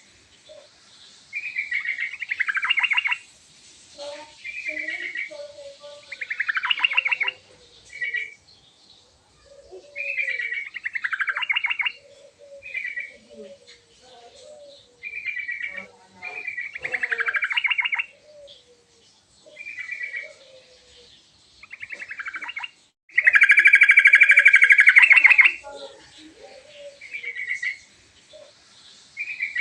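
Yellow-vented bulbul (trucukan) singing: short bubbly phrases every second or two, several trailing down in pitch, with soft low chirps in between. About three-quarters of the way through comes one longer, louder phrase.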